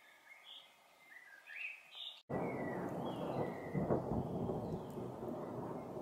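A common chaffinch sings short phrases of gliding notes. About two seconds in, after a brief dropout, thunder cuts in abruptly as a loud, deep, continuous rumble, with a stronger roll a little before the end. Faint bird notes go on over it.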